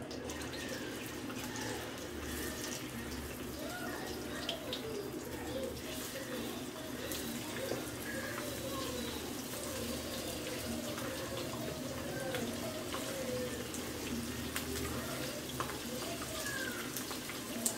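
Spice-coated small fish sizzling in hot oil in a shallow iron pan, a steady sizzle with scattered crackles and pops as more pieces are laid in.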